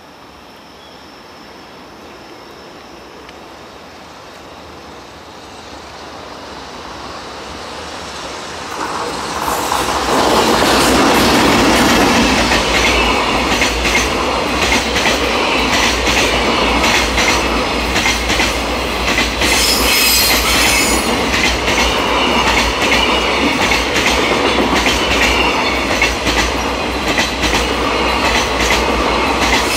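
A freight train hauled by an electric locomotive approaches, growing louder until it reaches the camera about ten seconds in. A long string of container wagons then rolls past with rhythmic wheel clatter over the rail joints, and high wheel squeal about twenty seconds in and again near the end.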